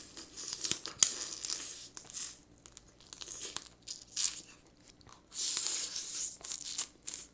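Close-up eating of steamed blue crab: repeated bursts of crunching shell and sucking meat out of it, with one sharp crack of shell about a second in.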